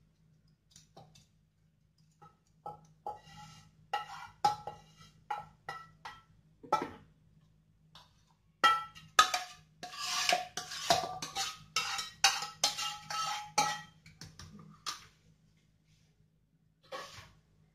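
Cooking utensils knocking and scraping against metal cookware: a wooden spatula scraping a frying pan, and a steel ladle stirring and clinking inside a stainless steel pressure cooker, each knock ringing briefly. The knocks are scattered at first, then come as a quick run of clinks in the middle, then a few last taps.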